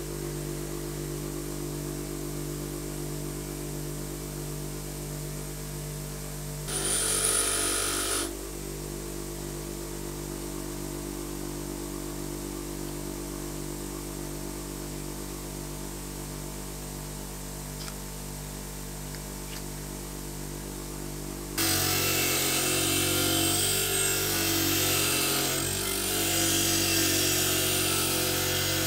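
Pro Max bench grinder running with a steady motor hum. About seven seconds in, a metal air-pistol part touches the wheel for a second and a half with a high whine. From about two-thirds of the way through, the part is pressed against the spinning wheel for a louder, sustained rough grinding as rust is stripped off.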